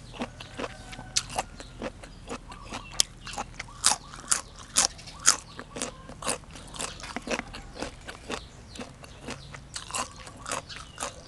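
Close-miked eating: crisp, sharp crunches about twice a second as a person bites and chews crunchy beef omasum salad and raw vegetables.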